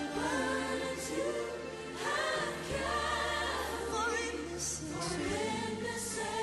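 Gospel worship song: a choir singing over instrumental accompaniment with a steady bass.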